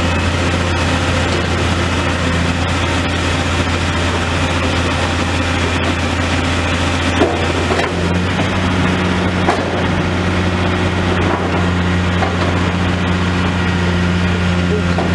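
Demolition excavator's diesel engine running steadily while its attachment crunches and cracks through building material, with a couple of sharp knocks partway through.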